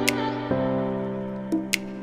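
Instrumental intro music: sustained chords that change about half a second in, with a few sharp percussive clicks on top.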